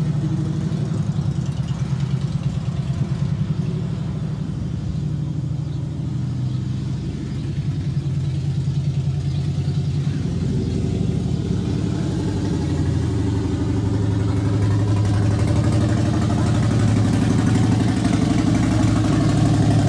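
Harley-Davidson V-twin motorcycle engine running as the bike is ridden slowly around the yard, fading slightly a few seconds in and growing louder as it comes close near the end.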